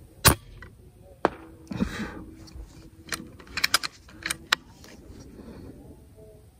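A moderator-fitted PCP air rifle firing once with a sharp crack just after the start, followed by a series of quick metallic clicks and a short rattle, the sound of the action being worked and loaded for the next slug.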